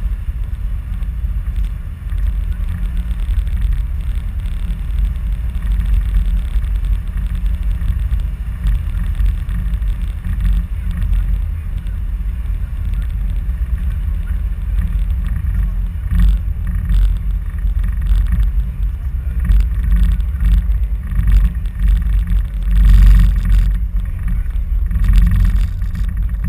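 Wind buffeting the camera microphone on a moving cable car: a steady, rushing low rumble that swells louder a few times in the second half.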